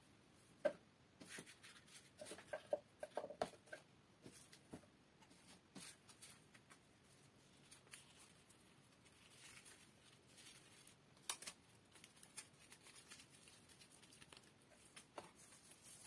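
Faint, scattered clicks and rustles of satin ribbon and plastic ribbon spools being handled and wound by hand, with a cluster of them a few seconds in and a sharper click later.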